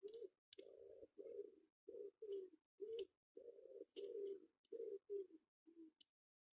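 A pigeon cooing faintly in a steady run of short low notes, about two a second, with a few light clicks in between.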